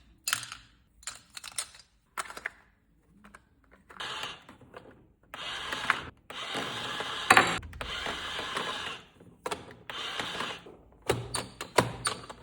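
A plastic toy cash register playset being unboxed: sharp clicks and snaps from the plastic parts and packaging. In the middle comes a run of longer rasping, rustling strokes as the packaging is pulled and torn.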